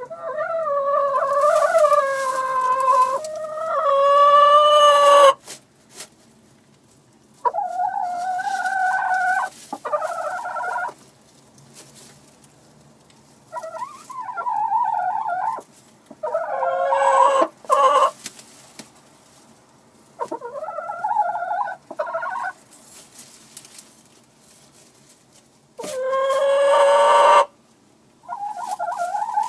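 Chickens in a henhouse calling: a series of about six long, drawn-out calls with quiet gaps between them, the first and longest lasting about five seconds.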